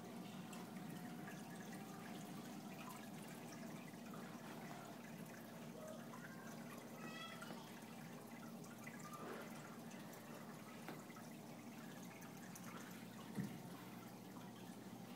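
Aquarium filter water trickling and splashing into the tank over a steady low hum. A single thump about thirteen seconds in.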